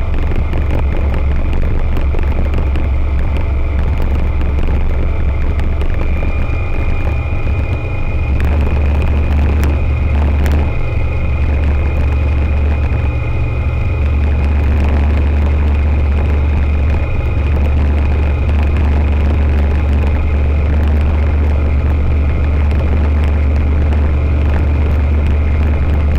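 Rotax 912 ULS flat-four engine and propeller of an Aeroprakt A22LS Foxbat ultralight droning steadily in level flight, heard from inside the cockpit, with a thin high whine over the deep drone.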